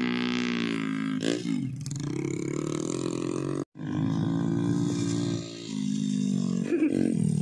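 Small single-cylinder motorcycle engine running steadily under load, laden with sacks of unhusked rice, with a brief break just past the middle.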